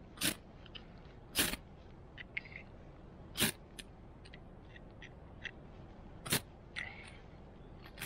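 Ferro rod (fire steel) struck four times with a metal scraper, each a short sharp scrape a second or more apart, throwing sparks onto a tinder bundle of jute and dried bracken. Lighter clicks and handling noises fall between the strikes.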